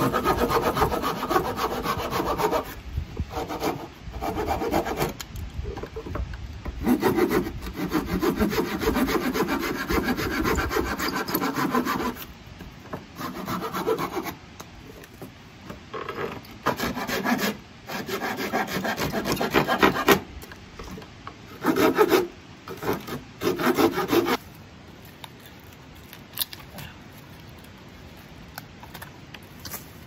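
Hand saw cutting through a wooden board, stroke after stroke. The sawing runs steadily at first, then comes in shorter spells with pauses between them, and stops a few seconds before the end.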